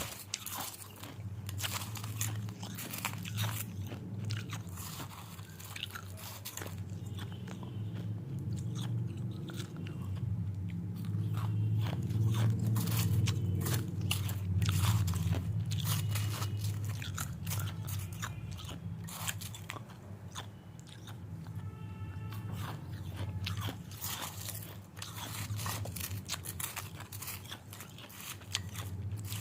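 A person chewing and biting crunchy food close to the microphone, a run of sharp, irregular crunches throughout, over a steady low hum.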